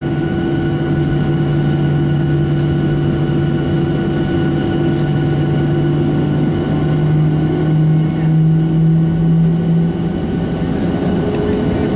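Boeing 737-700's CFM56-7B jet engines running at low taxi thrust, heard inside the cabin over the wing as a steady drone with several held tones. The engine tone rises slightly and swells about eight seconds in, then eases back near ten seconds.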